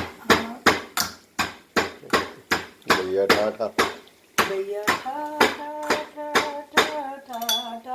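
Cardamom being pounded with a metal pestle in a small stainless-steel mortar cup: sharp metallic knocks at a steady pace of about three a second, with a short pause about four seconds in.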